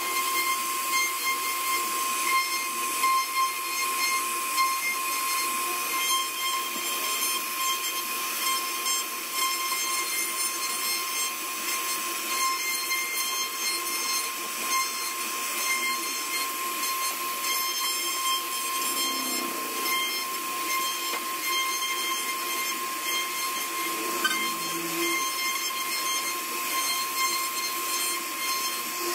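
CNC router spindle running with a steady whine over a hiss while its bit cuts into a wooden panel.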